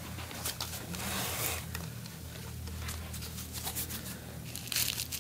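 Rustling and scraping of clothing and the treatment-table cover as a patient is positioned on a chiropractic table, with a swish about a second in, a few small clicks, and denser rustling near the end, over a low steady hum.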